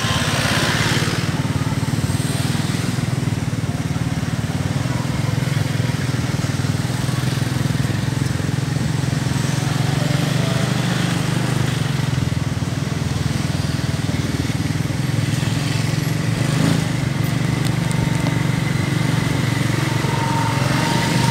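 Road traffic close by: a steady low engine rumble from buses, cars and motorcycles idling and passing, with motorcycles going by near the end.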